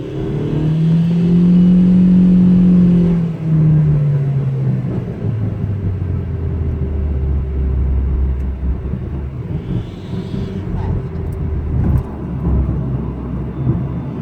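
Proton Preve CFE's turbocharged 1.6-litre engine revved up once about a second in, held for a few seconds, then falling back to a steady low idle rumble. The owner is chasing a whine that a service centre blamed on the turbo, though a turbo shop found the turbo fault-free.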